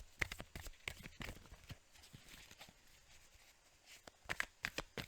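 Tarot cards being shuffled by hand: a run of quick, light card snaps and taps that thins out in the middle and picks up again near the end.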